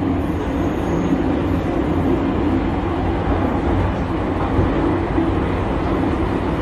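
Metro train running, heard from inside the carriage: a steady, loud noise of wheels and running gear with no breaks.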